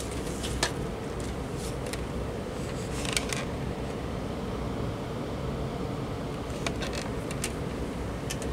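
Steady low hum of room background noise, with a few light clicks and taps as a plastic rotary desk telephone is turned over in the hands, including a small cluster about three seconds in.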